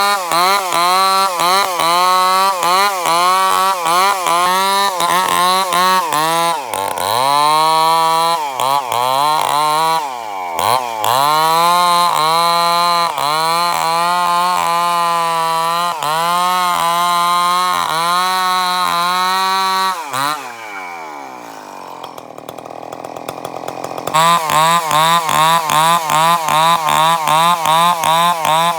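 Chainsaw cutting bayur wood, its engine pitch dipping and recovering about twice a second under load. About two-thirds through it falls to a lower, quieter running for a few seconds, then picks up again.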